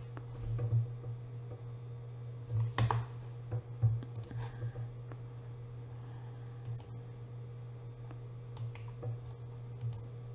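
A few scattered sharp clicks of a computer mouse over a steady low electrical hum.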